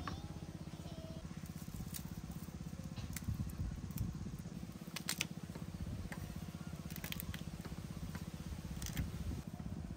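Garlic cloves being peeled by hand and cut with a kitchen knife on a wooden chopping board: papery skins crackling and several sharp knife taps on the board. A steady low engine-like drone runs underneath.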